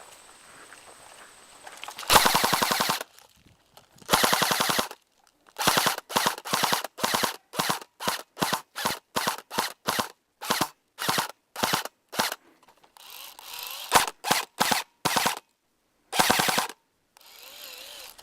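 Airsoft gun firing on full auto: two bursts of about a second each, then a long string of short bursts at about two a second, a short pause, a few more bursts, and a last one near the end.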